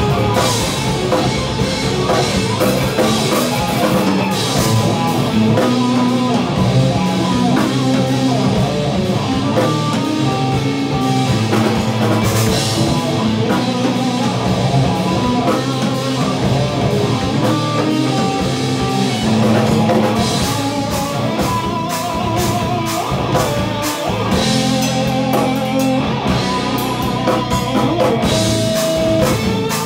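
A live band playing heavy instrumental rock: electric guitars, including a headless Strandberg, run through a Fractal FM3, with bass guitar and a drum kit with frequent cymbal hits.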